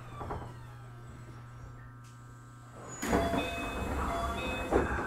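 Keio 8000 series electric train with a Hitachi SiC VVVF inverter: the inverter's several whining tones fall in pitch as the train brakes to a stop, then die away about two seconds in over a steady low hum. About three seconds in a sudden, much louder noise breaks in as the doors open, with steady high tones running through it.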